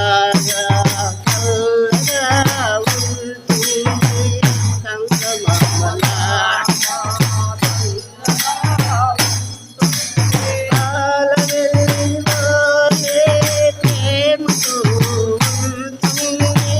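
Kanjira, a small South Indian frame drum with jingles, played in a fast, steady rhythm of sharp strokes over a low drum boom, with a melody over it.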